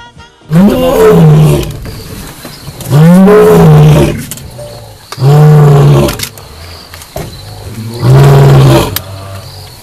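Male lion roaring: four loud, drawn-out calls about two and a half seconds apart, each about a second long, with a pitch that rises and then falls.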